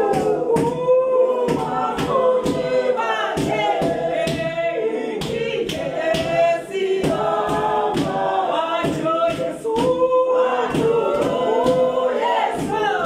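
A choir singing in several voices over a steady, sharp beat of about two strikes a second.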